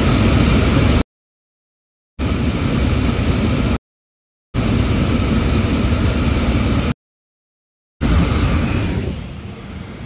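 HVAC package unit's squirrel-cage blower wheel running in heat mode as a loud, steady rushing noise. The blower is now powered through a relay added to replace a missing wire that had left it dead on heat. The sound drops out to dead silence three times for about a second each, and eases off near the end.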